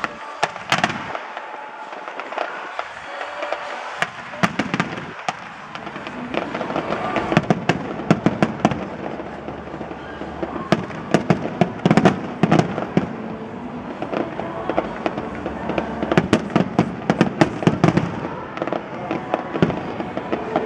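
Fireworks display: a rapid barrage of shell bursts and crackling, sparser at first and growing dense and continuous after about four seconds.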